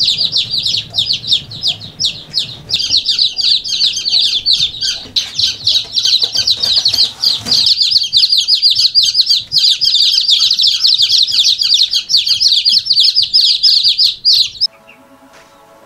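A crowd of chicks peeping: a loud, dense stream of high, short, falling peeps that cuts off abruptly about a second before the end, leaving a faint steady tone.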